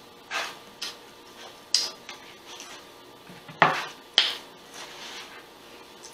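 A few swallows of a drink, then a drinking glass set down on a stone countertop: a sharp knock about three and a half seconds in, the loudest sound, with a clink just after.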